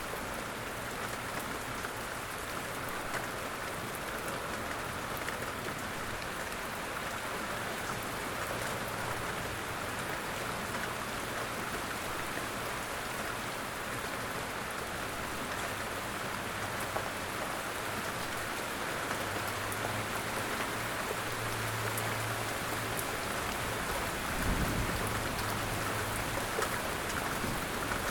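Steady light rain falling in woodland, a continuous patter with scattered individual drop ticks. A brief low thump comes about 24 seconds in.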